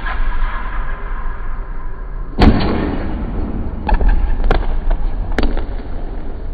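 Basketball hitting hard surfaces in a gym: one loud bang about two and a half seconds in, then three lighter bounces on the hardwood floor.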